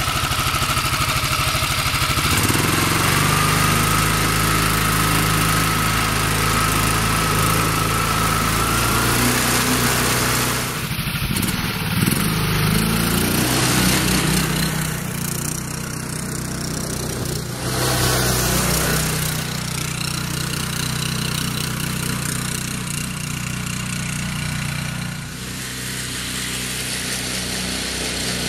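Small single-cylinder side-shaft engine, a 7 hp Harbor Freight-style motor, running steadily as it drives a homemade quad through a belt variator and chain, with a thin whine over the first several seconds. The engine note shifts abruptly a few times.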